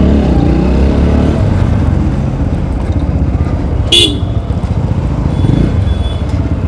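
Single-cylinder engine of a TVS Apache RTR 160 4V motorcycle running at crawling speed in heavy stop-and-go traffic, with other vehicles around it. A short horn beep sounds about four seconds in.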